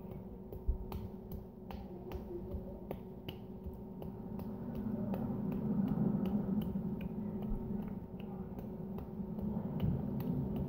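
An open hand slapping a cheek over and over, a run of sharp slaps at about three a second.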